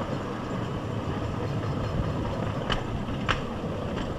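Bamboo train (norry) running along rough rails: a steady rumble of its small engine and steel wheels, with two sharp clacks about half a second apart near the end as the wheels cross a rail joint.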